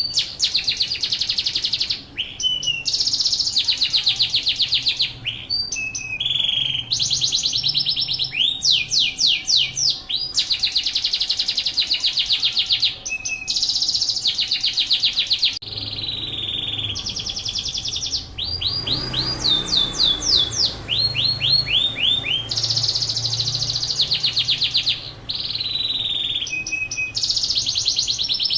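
Yorkshire canary singing a long, continuous song: runs of very fast trilled notes alternate with phrases of sweeping whistled notes repeated a few times a second, with only brief pauses between phrases.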